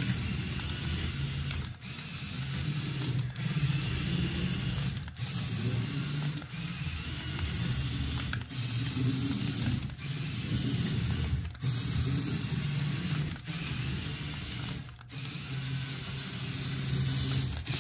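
Mould King second-generation high-torque motor driving a brick-built RC car through its plastic gear train: a steady mechanical whirr and gear chatter, with short breaks every second or so.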